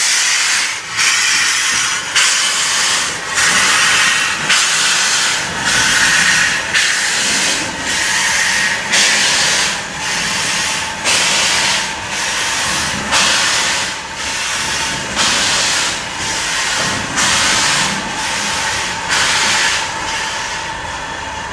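Ivatt Class 2MT 2-6-2 tank steam locomotive pulling away under power: a steady rhythm of exhaust chuffs, about two a second, over continuous steam hiss from the cylinders, easing a little as it draws away.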